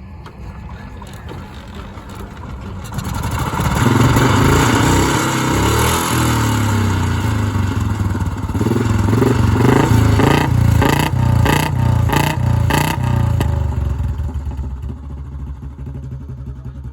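Royal Enfield Bullet 350 single-cylinder engine revved hard through its exhaust. It climbs from idle about three seconds in and is held high, then gives a run of about five quick throttle blips before settling back to a steady idle near the end.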